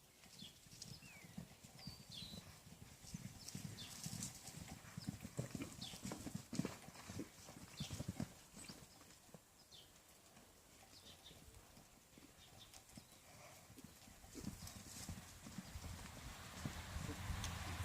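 Horse's hooves striking the ground as it moves, a run of irregular hoofbeats. They are louder in the first half, ease off around the middle and pick up again near the end.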